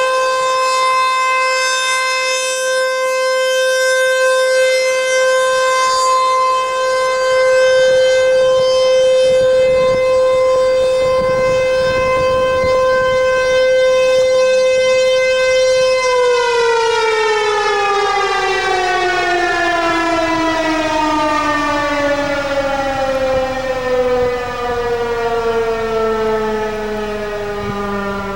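ASC T-128 outdoor warning siren sounding one steady tone, then about sixteen seconds in beginning to wind down, its pitch falling steadily and slowly through the rest as the rotor coasts after power is cut at the end of the test signal.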